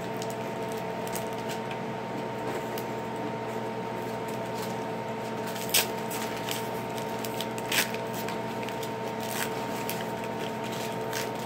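Pokémon trading card booster pack being opened and its cards handled: soft crinkles and card rustles, with two sharper snaps about six and eight seconds in. A steady electrical hum lies underneath.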